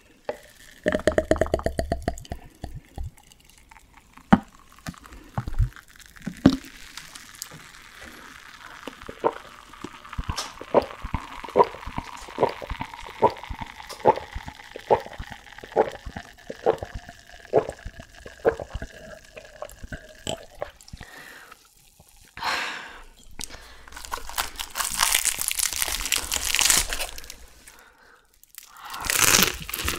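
Draft beer glugging out of a plastic bottle into a glass mug, then a long run of steady gulps, about three every two seconds, as the beer is drunk. Near the end comes loud crunching as teeth break the crisp skin of a whole deep-fried chicken.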